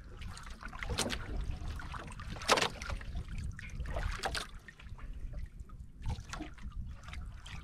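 Seawater lapping and splashing against the hull of a small outrigger boat, in irregular splashes over a low steady rumble, with one louder splash about two and a half seconds in.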